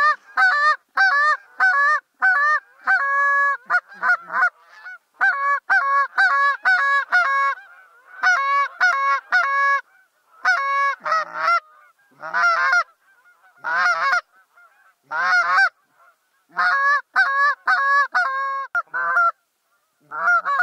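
Canada goose call blown by a hunter: rapid runs of short honks, a few drawn out longer, broken by brief pauses. The calling is meant to bring a flock of Canada geese in to the decoys.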